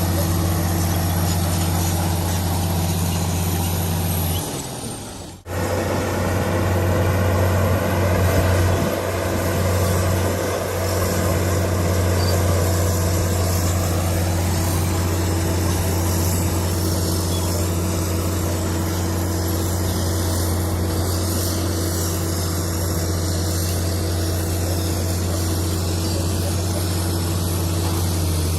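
Komatsu D65PX crawler bulldozer's diesel engine running steadily with a low drone, cutting out briefly about five seconds in and then carrying on.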